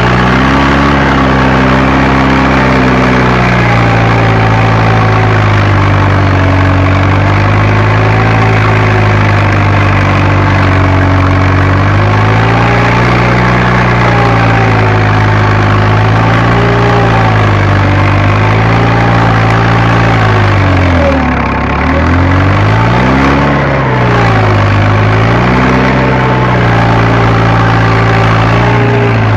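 Fiat Agri tractor engine running, heard from inside the cab while working a field for seedbed preparation. Its pitch sags and recovers again and again as the load comes on and eases, with the deepest drop about two-thirds of the way through before it climbs back.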